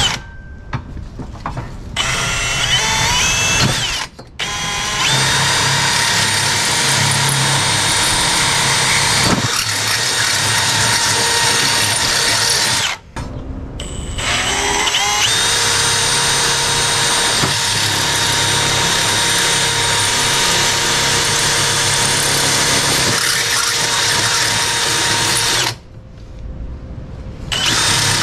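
Milwaukee cordless drill boring into the table saw stand's metal frame rail. It runs in long steady stretches with a whine and stops briefly a few times, climbing in pitch each time it spins back up.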